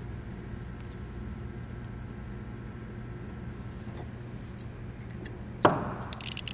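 Light handling of small hard parts: faint scattered ticks over a steady low electrical hum, then a sharp clack near the end followed by a few small clicks.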